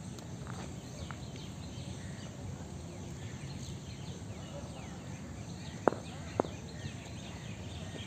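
Birds chirping over a steady low outdoor rumble, with two sharp knocks about half a second apart some six seconds in: a cricket ball striking the concrete net pitch and bat.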